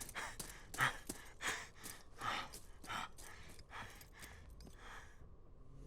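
A man's quick breathing, about two short breaths a second, dying away about five seconds in.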